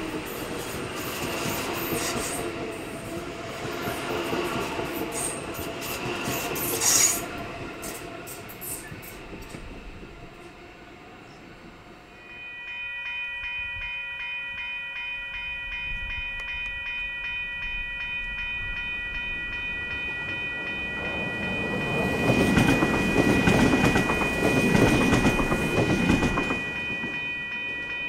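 AM-class electric multiple unit running through a station, with a rumble of wheels and a loud, sharp burst about seven seconds in. From about twelve seconds a steady multi-tone warning signal sounds without a break. A louder rushing noise swells and fades in the later seconds.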